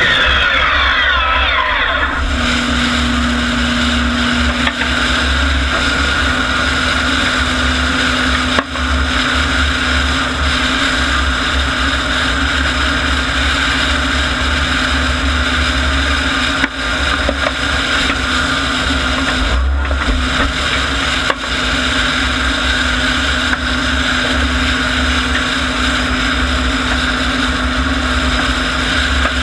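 Klimov TV3-117 helicopter turboshaft engines of a modified turbine tractor puller, whining down in pitch over the first two seconds and then running steadily at idle with a constant whine over a low rumble.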